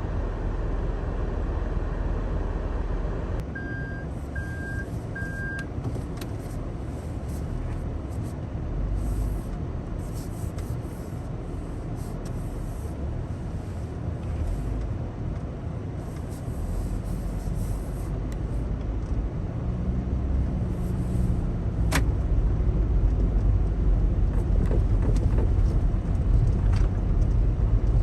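Daihatsu Taft kei SUV driving: a steady engine and road rumble that grows louder toward the end, with three short high beeps a few seconds in.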